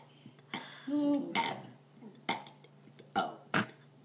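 A girl burping on purpose: a short, low burp about a second in, then a few brief, sharp sounds near the end.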